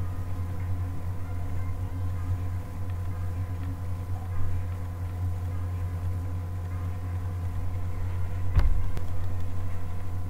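A steady low hum with several evenly spaced overtones throughout, and one sharp knock about eight and a half seconds in.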